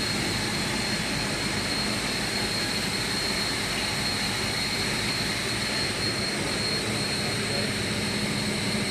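Steady drone of industrial machinery running: a constant hum with a thin high whine over it and no let-up.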